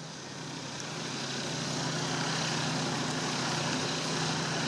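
Airboat's engine and aircraft-style propeller running, growing louder over the first two seconds, then steady.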